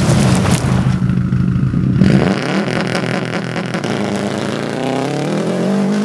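2004 Subaru Impreza WRX STi rally car's turbocharged flat-four engine through a straight-pipe exhaust, driving past under hard throttle. About two seconds in, the note drops in pitch as the car goes by, then climbs steadily as it pulls away.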